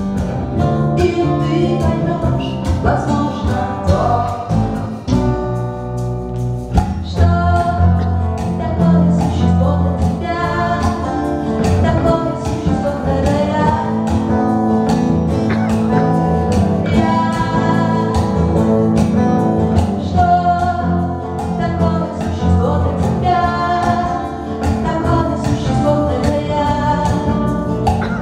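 Live acoustic band playing a song: a woman singing lead over two acoustic guitars, an upright double bass and a cajon keeping a steady beat.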